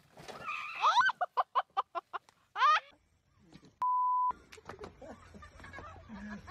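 A quick run of short, high-pitched cries with rising swoops, then a steady electronic bleep tone lasting about half a second, the kind used to censor a swear word.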